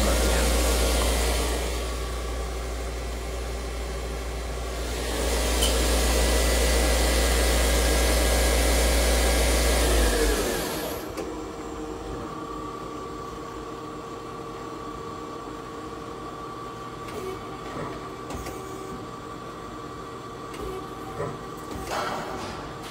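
CNC turning-center sub-spindle on a Doosan Lynx 220LSYA running at speed, a loud steady rush over a low hum that eases and picks up again. About ten seconds in it winds down with a falling whine and stops. The idling lathe then gives a faint steady whine, with a few clicks near the end.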